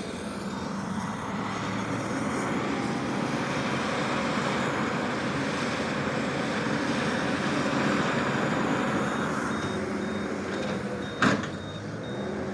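Skid steer engine running under load as it works dirt, growing louder toward a peak about eight seconds in and then easing off. A single sharp knock comes near the end.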